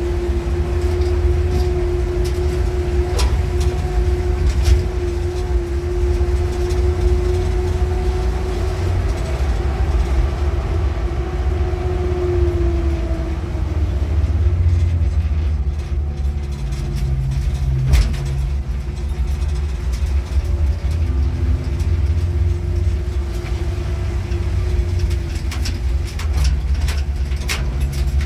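A motor vehicle running: a steady low engine and road rumble with a whining tone that drops in pitch about halfway through, and a few sharp knocks.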